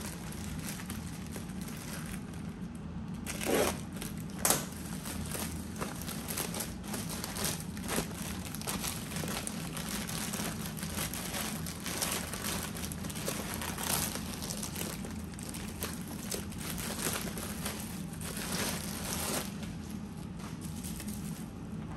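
Clear plastic packaging bags crinkling and rustling as they are cut open and pulled apart by hand, in an irregular run of crackles with two louder snaps about three and a half and four and a half seconds in. A steady low hum runs underneath.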